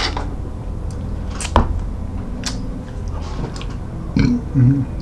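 Straw sipping from a plastic drink cup stops at the start, followed by a couple of sharp clicks as the cup and lid are handled and set down. Near the end comes a short, low throaty sound.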